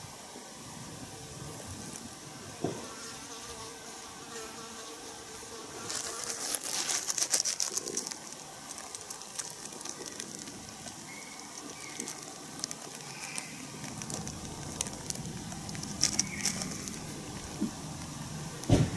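Flying insects buzzing around meat bait, with a thin drawn-out hum early on. Dense crackling and ticking comes between about six and eight seconds in, and scattered louder clicks follow later.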